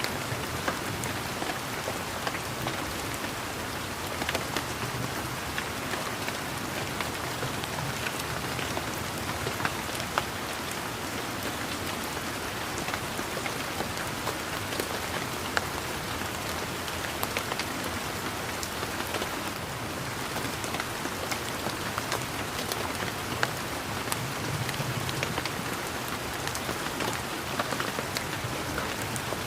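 Steady rain pattering on leaves, with many individual drops ticking close by.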